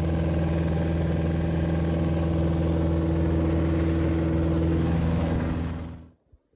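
Single-engine bush plane's piston engine and propeller droning steadily in flight, heard from inside the cockpit. It fades and cuts off about six seconds in.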